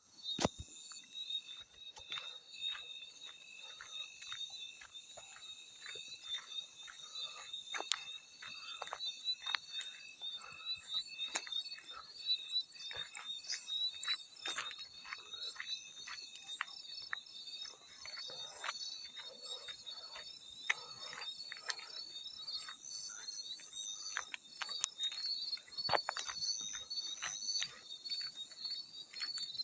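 Field crickets chirping in a steady high pulsed trill, with frequent irregular small water splashes and drips.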